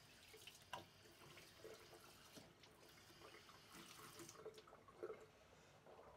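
Faint water running from a bathroom tap into a sink, with a few small knocks. The water stops about four seconds in.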